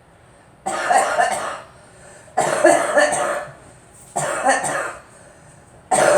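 A girl coughing in repeated fits: three bouts of about a second each, roughly a second and a half apart, with a fourth starting near the end.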